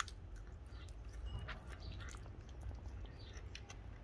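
F1 Savannah cat chewing and gnawing a raw chicken leg, with irregular short crunching clicks.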